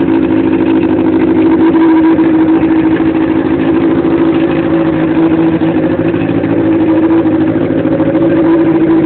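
1999 Kawasaki ZX-6R's inline-four engine idling steadily and loudly, running with mild cams and no exhaust fitted.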